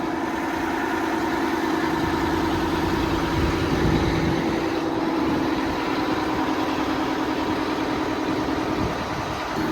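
Engine idling steadily, a low even hum that holds the same pitch throughout.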